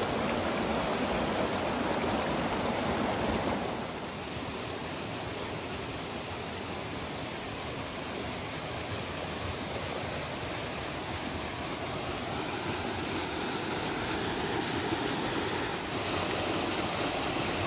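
Mountain stream rushing over rocks and small waterfalls into pools: a steady rush of water that drops a little in loudness about four seconds in and picks up again near the end.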